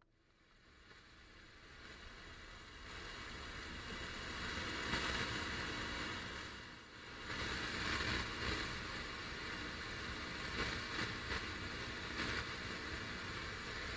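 A car driving: steady road and tyre noise that swells over the first few seconds, dips briefly about seven seconds in, then carries on.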